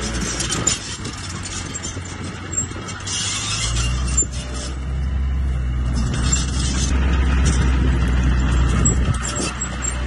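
Small crawler bulldozer's diesel engine running steadily as it pushes dirt and rock. It drops back for a few seconds, then grows louder from about four seconds in as the blade loads up.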